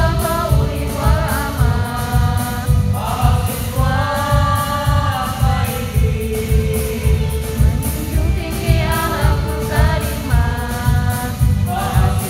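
Mixed choir of women and men singing a rousing march song with long held notes, over accompaniment with a steady low beat of about two pulses a second.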